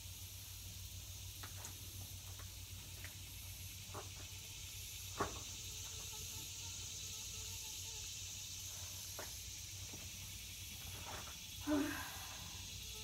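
Steady high-pitched hiss of insects under a low hum, broken by a few scattered light clicks and knocks, with a short louder clatter near the end.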